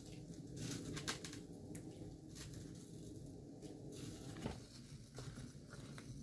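Cauliflower florets being dropped by hand into a steel pot of water: a faint, irregular patter of small taps and plops.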